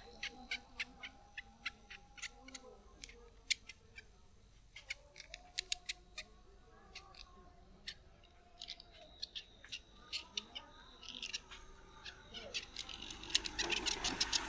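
Sharp hand taps and slaps of a head massage, coming irregularly and several a second in places, with faint voices in the background.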